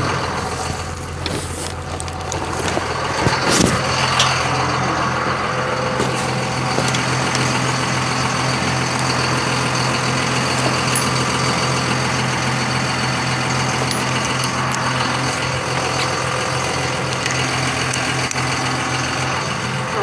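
Engine idling steadily with an even low hum, and a brief clatter of knocks about three and a half seconds in.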